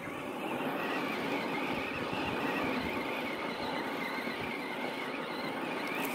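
Electric motor of a Traxxas RC truck whining steadily as it drives, the pitch wavering up and down a little, over a hiss of tyre and ground noise.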